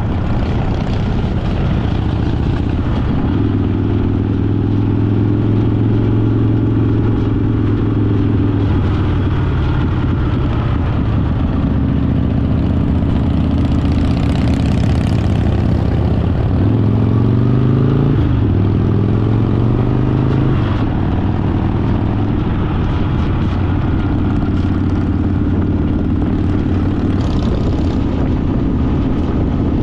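Harley-Davidson Fat Boy's V-twin engine pulling steadily at road speed. A little over halfway through it revs up and drops back as it shifts up a gear.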